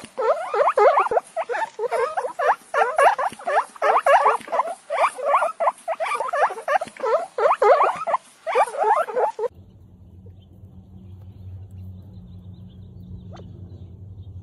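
Guinea pigs munching watermelon: rapid, repeated wet chewing bites, several a second, for about nine seconds. It then cuts off suddenly to a quiet low steady hum with a single faint high chirp near the end.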